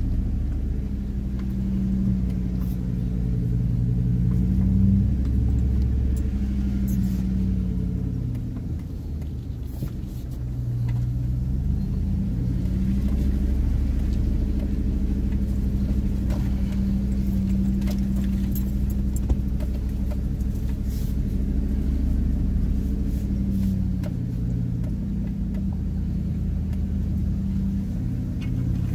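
Chevrolet Silverado pickup's engine running at low speed as it crawls along a dirt trail: a steady low drone that sags briefly about a third of the way in and then picks up again, with faint clicks and rattles.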